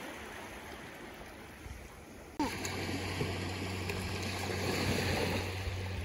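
Steady wash of surf on a sandy beach. About two and a half seconds in it turns abruptly louder, with a steady low rumble underneath.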